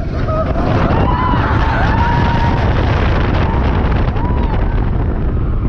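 Wind rumbling on a body-worn action-camera microphone, with faint voices of people in the background.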